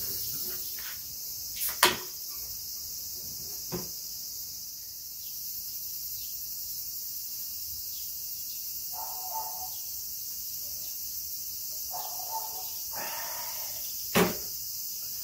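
Steady high-pitched chirring of insects, with a few sharp clicks, two close together about two seconds in and one near the end.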